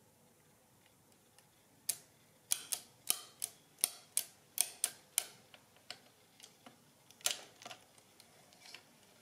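Monroe model K mechanical calculator's exposed mechanism clicking as its hand crank is turned: a run of about ten sharp metal clicks, roughly three a second, then a few fainter ticks and one louder click near the end.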